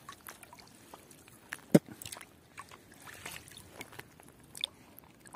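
Quiet sloshing and dripping of water with scattered small clicks and rustles as a fish is worked loose by hand from a wet fishing net, with one sharper tap a little under two seconds in.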